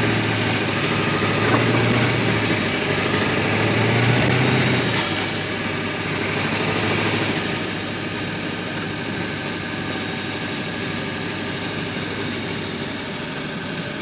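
4x4 truck's engine running as it drives through deep snow, heard from inside the cab, with a steady rushing noise over the engine hum. The sound is louder at first, then drops about five seconds in and again a couple of seconds later.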